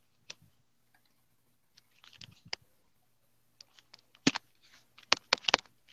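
Scattered sharp clicks and taps close to the microphone, loudest in a quick run of several in the last two seconds, over a faint steady hum.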